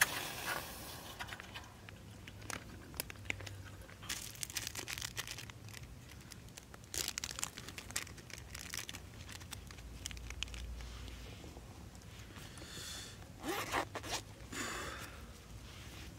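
Plastic milk pouch crinkling and tearing in short scratchy bursts as it is handled and opened.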